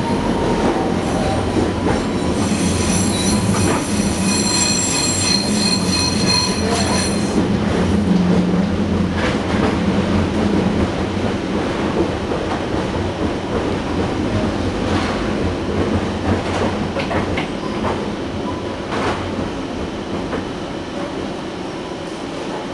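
Inside a TTC Scarborough RT car (Bombardier ICTS Mark I, driven by linear induction motors) running on its track: steady rolling rumble with a low hum. A high wheel squeal sounds from about two to seven seconds in, then scattered clicks over the track, and the noise eases off near the end.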